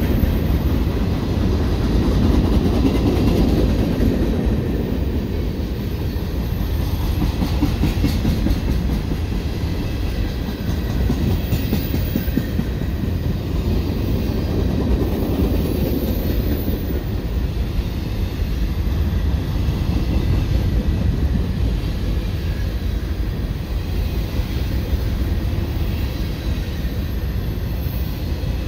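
Freight train cars rolling past: a steady rumble of steel wheels on rail with clickety-clack over the rail joints.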